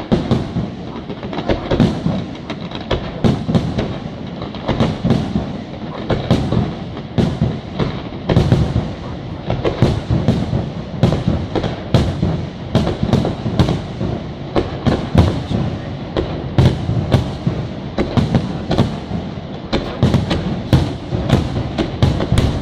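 Fireworks display: a continuous barrage of aerial shells bursting, sharp bangs following one another two or three times a second over a steady low rumble.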